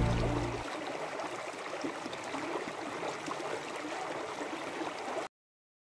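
Shallow mountain stream rushing and rippling over stones, as background music fades out in the first second. The sound cuts off abruptly near the end.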